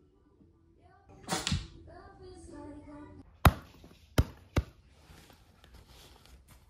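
A short rustle, then a couple of seconds of soft whining, voice-like sounds. These are followed by three sharp clicks or knocks as a packed duffel bag with a metal strap clip is handled.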